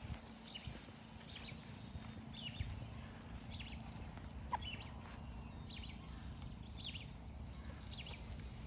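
A songbird giving short, high chirp notes over and over, about one or two a second, with footsteps on the trail and a low outdoor rumble under it.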